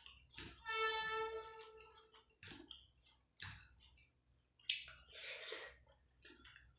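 Close, wet squishing and clicking of fingers kneading rice with chicken masala gravy on a plate, with chewing. About a second in, a steady pitched tone of unknown source sounds for about a second and a half and is the loudest thing heard.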